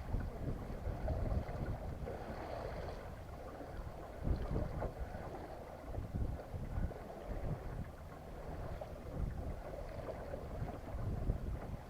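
Wind buffeting the microphone in uneven gusts over a steady rushing hiss, aboard a small sailboat under sail.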